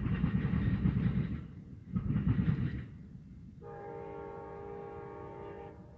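Passenger train cars rumbling past on the rails, the noise dropping away about three seconds in as the rear of the train clears. From about three and a half seconds, a steady multi-note chord on an air horn sounds for about two seconds, fainter than the passing cars: the lead Siemens SC-44 locomotive's Nathan K5LA five-chime horn.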